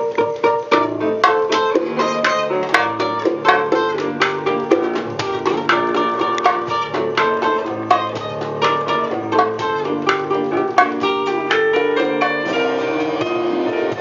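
Acoustic guitar played live as a solo passage: quick runs of plucked notes over held low notes.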